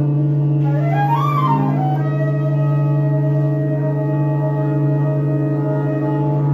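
Didgeridoo holding a steady low drone under flute, bowed cello and a conch shell in a free improvisation. About a second in, one pitch swoops up and back down, then settles into long held tones.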